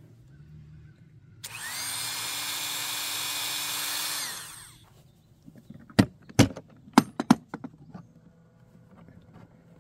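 Dremel rotary tool with a cut-off wheel whirring at high speed against a plastic toolbox for about three seconds, then winding down with falling pitch. A few seconds later come several sharp, loud clacks.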